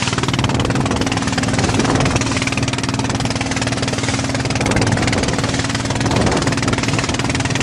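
Boat engine running steadily at an even, low pitch.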